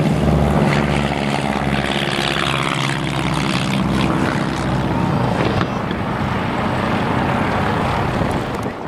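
Piston engines and propellers of a twin-engine light aircraft, running loud and steady as it passes low along the runway, with a drop in level near the end.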